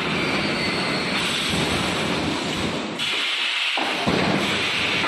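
Loud, steady rushing din of an EPS 3D wire-mesh panel welding line. It shifts abruptly a few times as the footage cuts.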